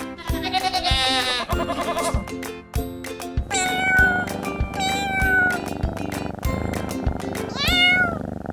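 Cat meowing three times over children's background music with a steady beat, after a quavering high call early on.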